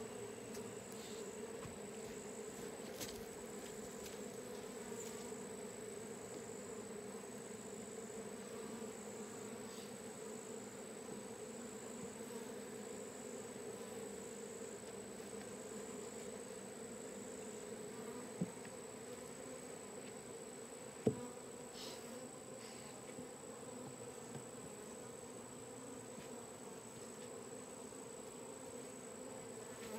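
A honeybee swarm buzzing in the air around a tree limb, a steady hum. The swarm keeps coming back to the limb, which the beekeeper takes as a sign that the queen was not caught. Two sharp clicks come a few seconds apart past the middle.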